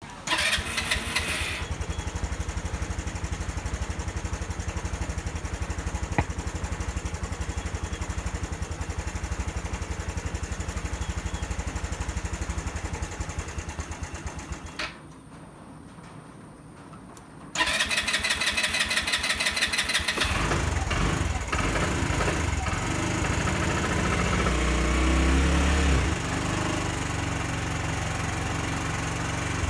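SYM Jets scooter engine started cold on the electric starter, idling and then dying about fifteen seconds in: the cold-start stall that a shop suspected was caused by carbon buildup. After a short quiet it is restarted with the starter, speeds up louder for several seconds, then settles back to idle.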